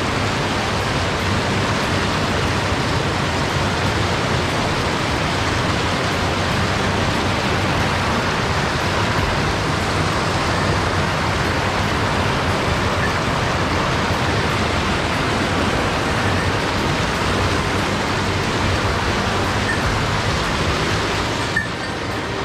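Steady rush of a mountain stream tumbling over rocks in small cascades, an even hiss-and-roar of water. Near the end there is a small click and the rush drops slightly in level.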